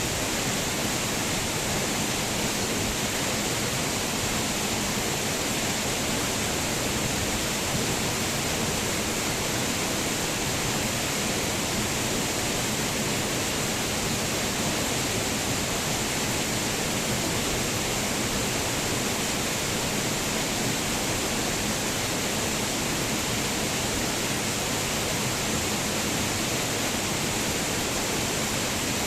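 Waterfall: water falling and splashing in a steady, unbroken rush of noise.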